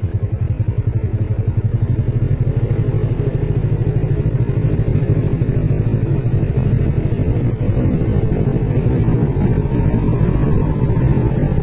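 Small motorcycle engine running steadily at low road speed, with a fast, even pulsing beat.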